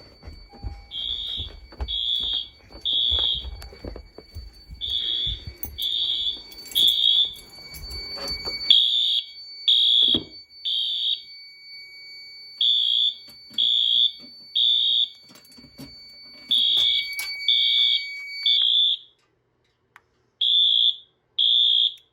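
Fire alarm notification appliances sounding the temporal-three evacuation pattern: three high beeps, a pause, then three more, repeating, after a manual pull station has been activated. Footsteps thump for the first several seconds, and a steady high tone under the beeps stops near the end.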